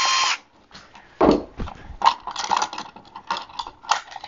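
A cordless drill-driver whirring cuts off just after the start. About a second later comes a heavy thump as the drill is set down on the wooden workbench, then a run of small clicks and clatters from hands working a plastic electronics box, screws and wires.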